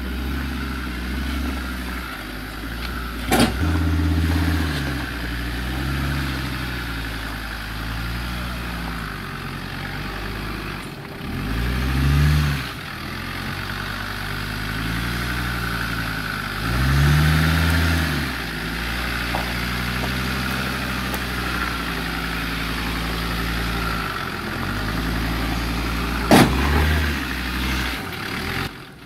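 Land Rover Discovery 4x4 engine idling and revving in short surges as it crawls at low speed over deep ruts, the revs rising and falling four times. Two sharp knocks stand out, a few seconds in and near the end.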